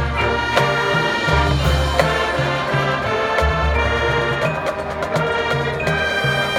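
High school marching band playing, brass carrying the melody over sustained low bass notes, with sharp percussion strikes.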